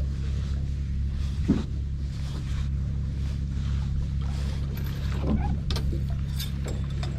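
Fishing boat's engine running steadily with a low hum, with a couple of brief knocks about one and a half and five seconds in.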